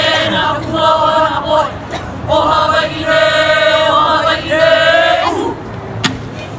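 A group of voices chanting a Hawaiian hula chant in unison: two long phrases of drawn-out, held notes with a short break between them. The voices stop shortly before the end, followed by a single sharp knock.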